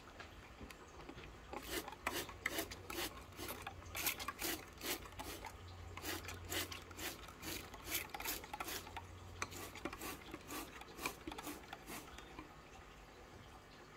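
Trigger spray bottle squeezed again and again, spraying into a glass bowl of aquarium gravel: a quick hissing spritz with each squeeze, about two or three a second, for some ten seconds.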